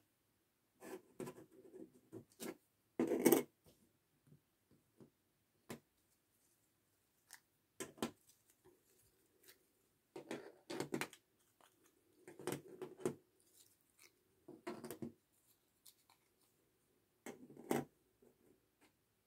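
Small acrylic diamond-painting earring pieces picked up and set down on a table: scattered light clicks and clatters with brief scraping, the loudest about three seconds in and again around ten to eleven seconds.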